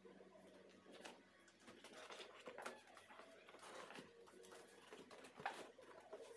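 Near silence: quiet room tone with faint, scattered taps of hands handling a cardboard gift box, one slightly louder about five seconds in.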